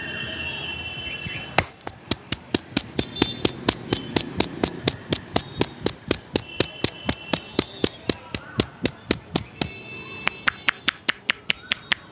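Rapid rhythmic hand tapping of a head massage: sharp, evenly spaced claps of the barber's hands on the head at about four a second, starting about a second and a half in, with a short break near the end.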